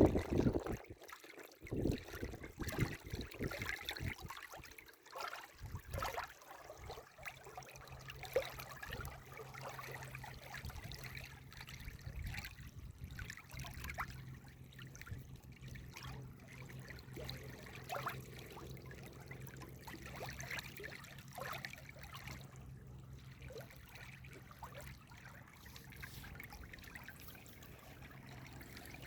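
Water trickling and gurgling in a stream. A run of irregular knocks and thumps comes over it in the first several seconds, then the flow goes on steadily.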